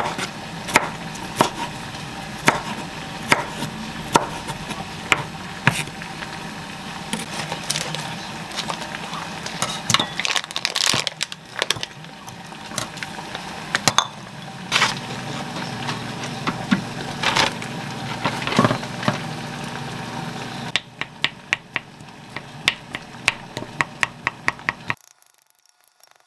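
Chef's knife chopping tomato on a wooden cutting board, one stroke about every second, followed by kitchen clatter, a steady low hum and light quick clinks that stop abruptly near the end.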